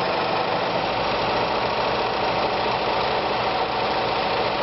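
Privileg Super Nutzstich 314 sewing machine running at a steady speed, stitching a sample row of one of its built-in stitch patterns.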